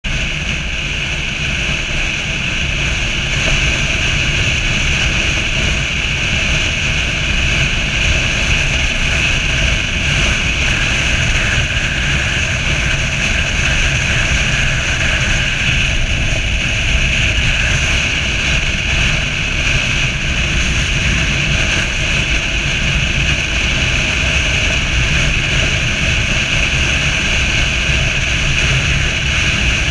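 Motorcycle riding at steady highway speed: a constant drone of engine and tyres mixed with wind rushing over the microphone.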